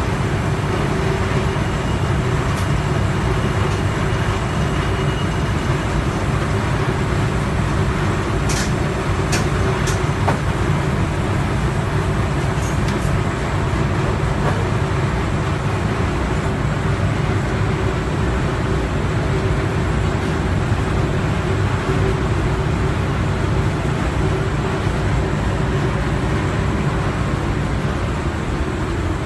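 Commercial refrigerator's condensing unit (compressor and condenser fan) running steadily with a loud, even hum while refrigerant is charged through the gauge manifold. A few light ticks about a third of the way in.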